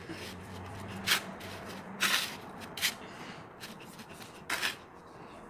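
Hands scooping and pressing a dry flour-and-breadcrumb coating onto raw chicken fillets in a pan: the crumbs rustle and scrape, with about four short, louder bursts.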